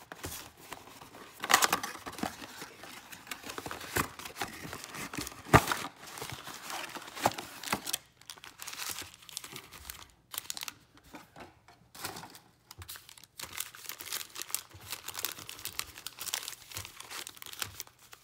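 Plastic wrap and cardboard of a trading-card mega box crinkling and tearing as it is opened, with several sharp snaps and cracks in the first six seconds. Then quieter crinkling of foil card packs being handled and laid out.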